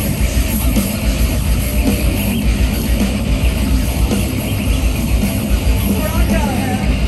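Heavy rock band playing loud live, with a pounding low end and drums, heard from among the concert crowd.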